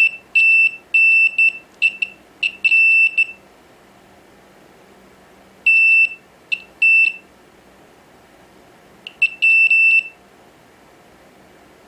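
Digital multimeter's continuity beeper sounding in irregular short and longer high-pitched beeps as the probes touch test points on an iPad Air logic board. The beeps come in three clusters: a burst of about six, two or three more in the middle, then a last few near the end. They signal continuity through the backlight-circuit filters being checked.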